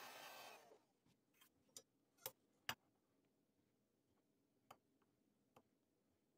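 Handheld heat gun blowing a steady rush of air onto the blade's blue layout dye, cutting off abruptly under a second in. Then a scatter of sharp, separate clicks and taps of steel tools and the blade being handled on a granite surface plate, the loudest two close together about two and a half seconds in.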